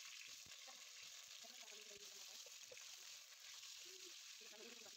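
Faint sizzling of raw potato chunks frying in hot oil in a nonstick pan, with small crackles spitting through it.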